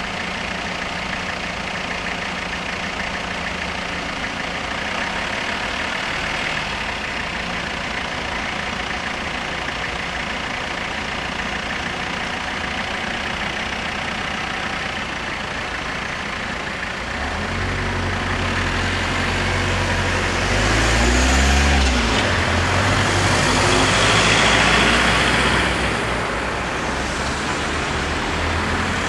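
Cars and a light truck idling in a queue at a closed level crossing. A little over halfway through they pull away and drive across the tracks, the engines growing louder and revving as they pass.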